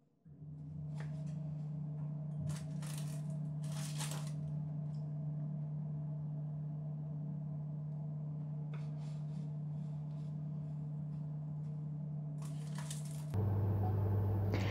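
Faint rustling and light taps of dough sticks being dipped in molasses water and rolled in sesame seeds, over a steady low electrical hum. Near the end the hum changes to a lower one.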